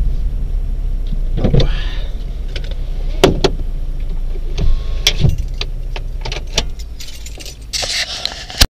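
Car engine idling with a steady low rumble, heard inside the cabin of a stopped car, with several sharp clicks and knocks from handling inside the car and a rustle near the end.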